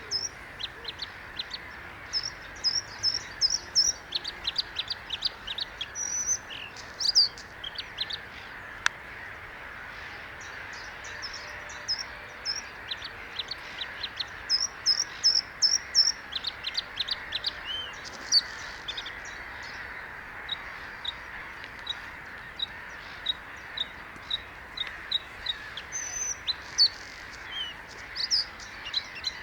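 Bluethroat (Luscinia svecica) singing: phrase after phrase of quick, high, varied notes and trills, with short pauses between phrases, over a steady background hiss.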